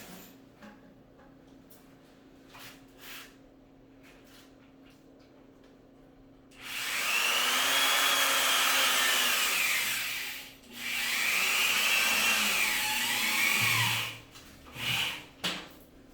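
Power drill running in two bursts of about four and three seconds, separated by a short pause, its whine rising and falling in pitch, while the mahogany floating countertop is being fastened in place. A few knocks follow near the end.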